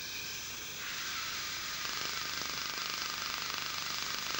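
Er:YAG dental laser firing a rapid, even train of pulses at a tooth: a fast popping with a hiss, starting up about a second in after a short lull. The laser is ablating tooth surface to prepare it for a composite filling.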